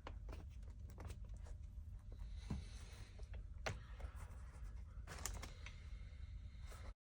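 Scattered light clicks and scratching from hands working on car door-sill trim parts. The sound cuts off abruptly near the end.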